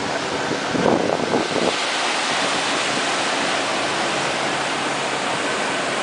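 Heavy ocean surf breaking: a steady rushing wash of waves, with a louder surge about a second in, then a brighter hiss from about two seconds on.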